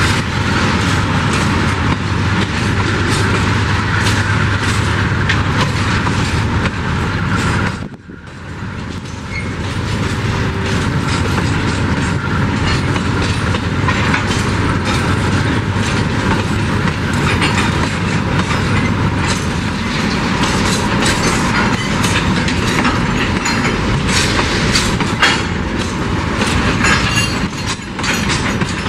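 Empty freight wagons rolling past close by: a steady rumble and clatter of steel wheels over the rail joints, with knocks and rattles from the empty cars. The noise drops briefly about eight seconds in.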